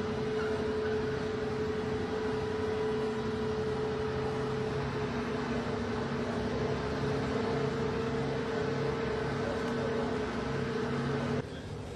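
Steady engine drone with a held whine from a multi-axle self-propelled heavy-load transporter carrying a building. It cuts off suddenly near the end.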